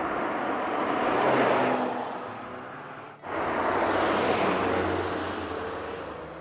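A Porsche Macan GTS with a 2.9-litre turbocharged V6 drives past at speed twice, its engine and tyre noise swelling and fading with each pass. The second pass cuts in abruptly about three seconds in and is loudest as the car sweeps close by.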